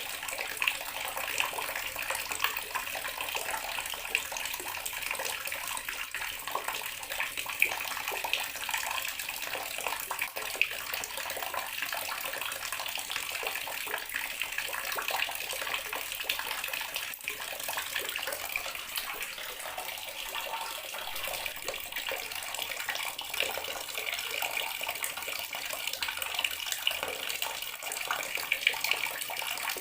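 Water tap running steadily into a bathroom sink, a continuous splashing stream.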